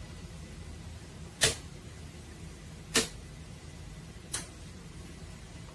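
Three sharp clicks about a second and a half apart, the first the loudest, as a hand works at the wall switch of a mains test board, over a low steady hum.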